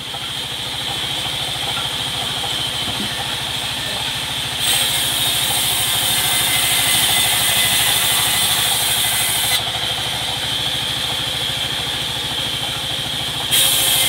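Large sawmill band saw running steadily while its blade rips teak: a hissing cutting noise comes in about five seconds in, stops near ten seconds, and starts again near the end, over the machine's constant hum.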